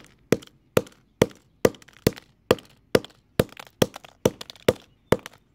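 A steady run of sharp knocks, a hard object striking a hard surface a little over twice a second, about thirteen strikes in an even rhythm.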